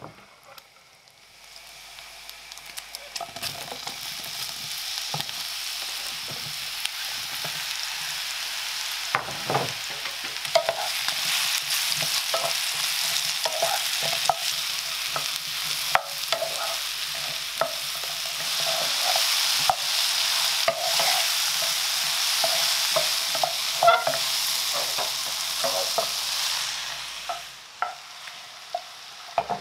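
Food sizzling in hot oil in a frying pan, stirred with a utensil that clicks against the pan now and then. The sizzle starts about a second and a half in, grows louder, and dies down near the end.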